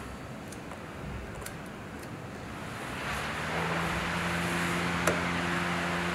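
A 45 W oscillating desk fan running after its speed knob is turned. Its motor hum and the rush of air get louder from about three seconds in as the blades pick up speed, with a single click near the end.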